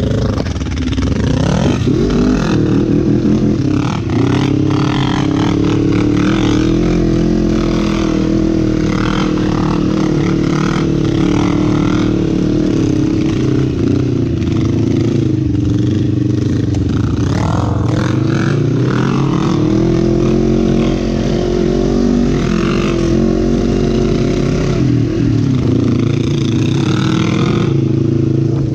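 Quad bike engine running hard under riding, its pitch rising and falling as the throttle is opened and closed. There are sharper rev-ups about two seconds in, around seventeen seconds and near twenty-five seconds.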